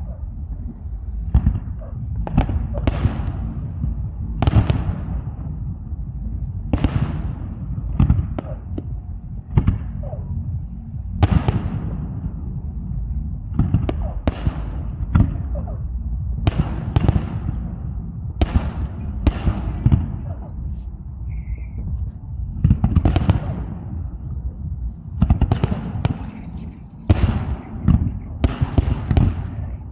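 Aerial fireworks bursting again and again, a bang every second or two, each one trailing off quickly, over a steady low rumble.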